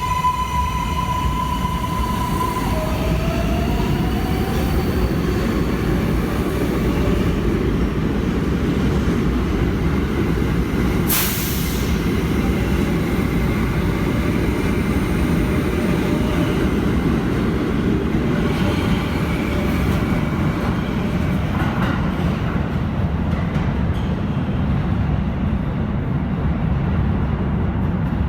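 Kawasaki R188 subway train running, a steady loud rumble of wheels on rail. High whining tones sound over it for the first couple of seconds, then a short gliding tone, and there is one sharp click about eleven seconds in.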